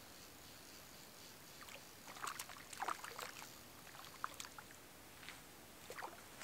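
A small hooked cutthroat trout splashing at the lake surface while being played on a fly rod: faint, irregular quick splashes, clustered about two to three seconds in and again near the end, over a steady faint hiss.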